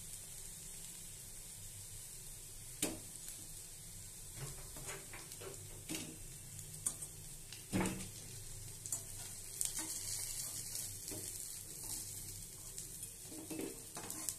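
Red lentil fritters sizzling steadily in hot oil in a steel wok, with scattered scrapes and knocks of a spatula on the steel pan and plate as they are lifted out; the sharpest knock comes a little before halfway through.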